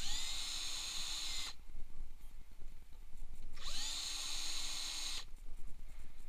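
Cordless drill-driver with a socket bit backing bolts out of a mini dirt bike's fork clamp. It runs twice for about a second and a half each, its motor whine rising quickly as it spins up and then holding steady.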